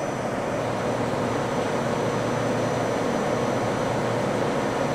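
Steady mechanical hum and whir with a faint high-pitched whine, unchanging throughout.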